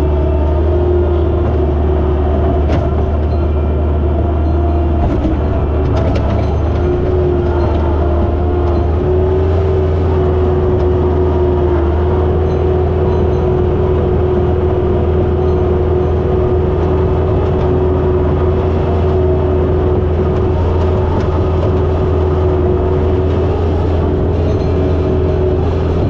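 John Deere 675B skid steer engine running steadily: a constant low rumble with a steady hum above it.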